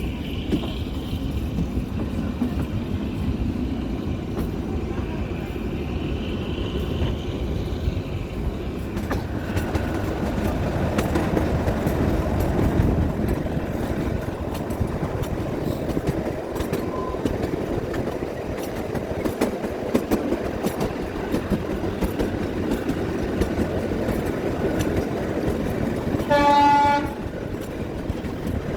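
Kalka–Shimla narrow-gauge toy train running, heard from on board: a steady rumble of the moving carriage with the wheels clicking over the rail joints. Near the end the locomotive's horn sounds once, a short blast of about a second.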